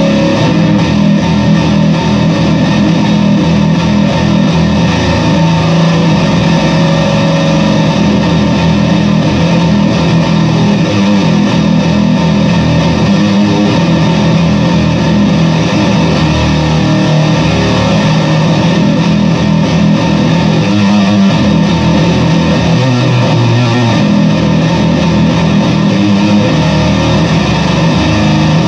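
Squier Bass VI six-string bass guitar played continuously through stacked fuzz/distortion pedals: a thick, heavily distorted, loud tone with much low-end weight.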